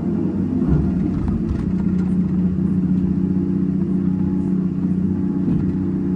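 Hyundai 330 hydraulic excavator's diesel engine running steadily under working load, a low steady drone, while the machine swings and digs its bucket into a soil pile. A few short knocks come about a second in.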